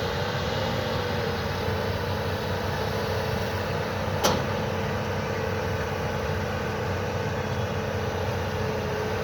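Mini excavator running steadily with an even mechanical hum, and a single sharp click about four seconds in.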